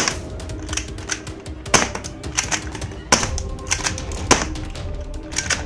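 Hard plastic toy pistols clicking and clacking as they are handled and knocked against other toy guns in a cardboard box: a string of sharp clicks, a few of them louder, about one a second, over background music.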